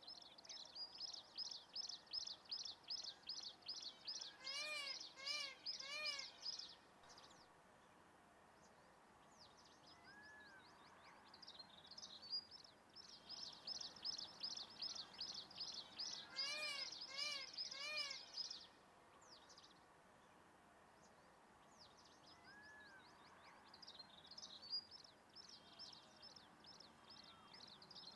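Wild birds calling: two bouts of rapid, high-pitched chirping, each with a run of three short arched notes partway through, with quieter gaps between. Faint.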